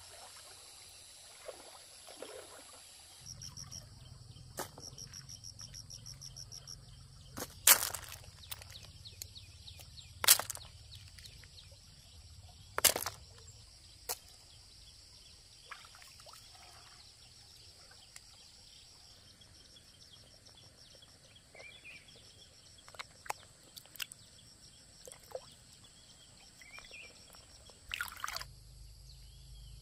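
Water sloshing and splashing outdoors, with three loud sharp splashes or knocks in the first half and smaller ones later, over a steady low rumble. A rapid high chirping runs for a couple of seconds early on.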